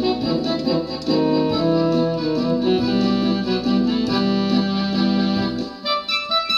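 Electronic keyboard music: a melody over held chords in an organ- or reed-like voice, with a short dip near the end before it goes on.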